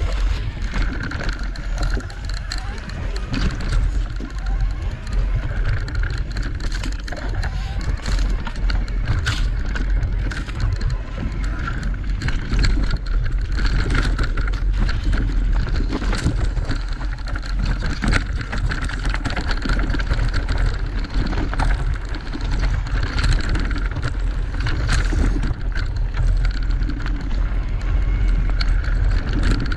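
Electric mountain bike ridden down a dirt singletrack: wind buffeting the microphone, tyres running over dirt and rocks, and frequent sharp knocks and rattles from the bike over rough ground.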